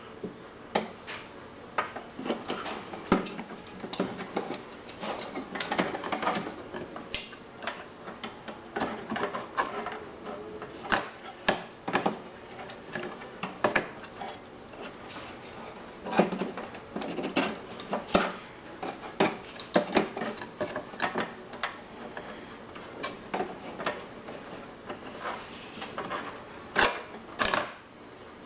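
Hands working inside an open desktop computer case while fitting a graphics card: irregular clicks, taps and knocks of metal and plastic parts, with short scrapes between them.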